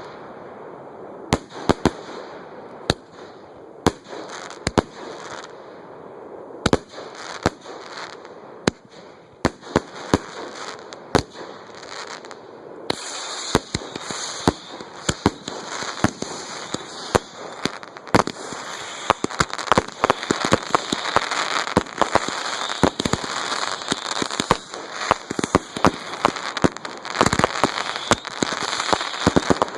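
Fireworks going off at close range: a string of sharp, irregular bangs that gets much denser about 13 seconds in, with a steady crackle under rapid reports.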